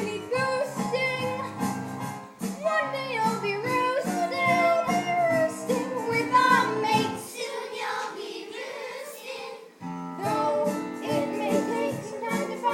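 A song: a high voice sings a melody over instrumental backing. A little past the middle the bass drops out for a couple of seconds, then the full backing returns.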